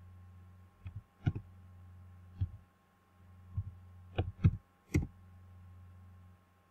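Computer keyboard keys tapped one at a time as a six-digit code is typed: about eight short, sharp, irregular clicks. A low steady hum runs underneath.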